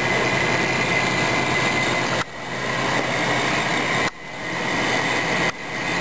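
Fedders 6,000 BTU window air conditioner running: its fan blowing and its compressor running, with a steady high tone from the fan motor, which still howls a little after being oiled. Three times the sound drops off abruptly and swells back over about a second.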